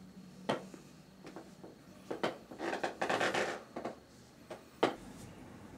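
Handling noise as a camcorder is moved around in a small room: sharp knocks or clicks about half a second, two seconds and nearly five seconds in, with a rustle of movement around the three-second mark.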